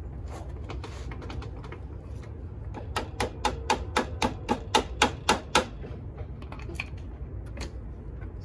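A quick run of about a dozen sharp clicks, about five a second, lasting nearly three seconds about midway through, from hand work on a scooter's front fork and steering head, over a steady low background rumble.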